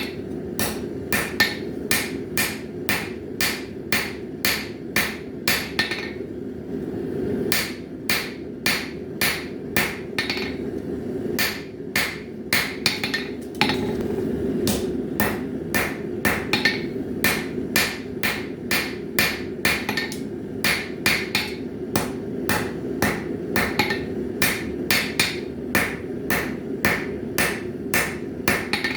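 Blacksmith's hammer striking a bar of 1075 high-carbon steel on an anvil in steady hand-forging blows, about two to three a second, with a few short pauses between runs. A steady rushing noise runs underneath.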